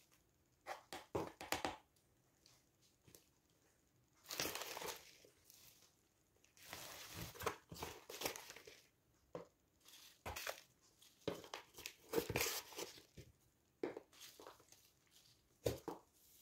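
Potting soil being scooped from a plastic tub with a small plastic pot and poured into a terracotta pot around a basil root ball: short, irregular scrapes and pours of loose soil with quiet gaps between.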